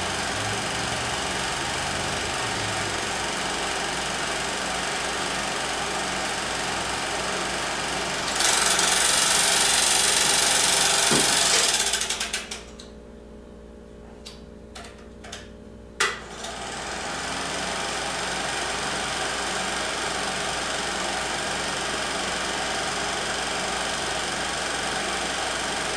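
16 mm film projector running, a steady mechanical clatter. About eight seconds in a loud hiss joins it. Around twelve seconds the sound falls away to a low hum with a few sharp clicks, and the clatter returns a little after sixteen seconds, starting with a sharp click.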